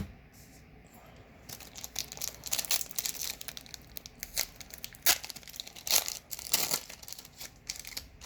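A foil booster pack wrapper being torn open and crinkled. It comes as a run of irregular tearing and crackling rustles, loudest a little past the middle.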